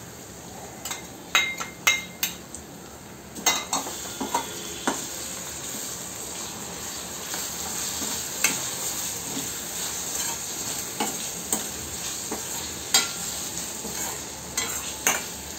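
Onions and chopped tomatoes sizzling in oil in a stainless steel kadai while a steel spoon stirs them, with sharp scrapes and clinks of the spoon against the pan. The sizzle grows louder a few seconds in as the tomatoes are mixed into the hot onions.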